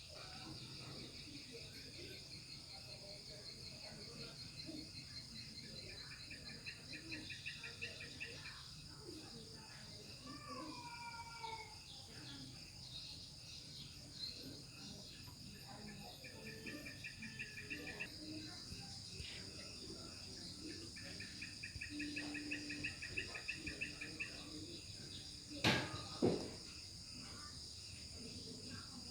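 Steady high trilling of crickets and other insects, with repeated pulsing trills coming and going and a short gliding bird call about ten seconds in. Two sharp knocks near the end.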